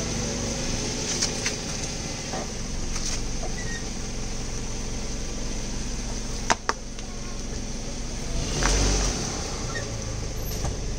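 A car's engine runs steadily while its tyre rolls slowly over a long eggplant on concrete and crushes it. Two sharp cracks come a little past the middle, and a louder dull squash follows a couple of seconds later.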